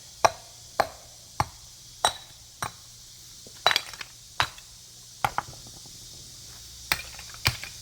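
Broken earthenware crock being smashed into pieces: about a dozen sharp, irregular strikes, each with a short clinking ring.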